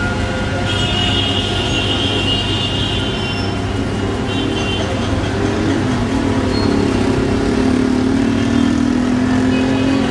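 Traffic on a rain-soaked street in heavy rain: a steady hiss of rain and tyres on wet road. A high-pitched tone comes in about a second in and lasts a couple of seconds, and a vehicle engine note swells from about six seconds in.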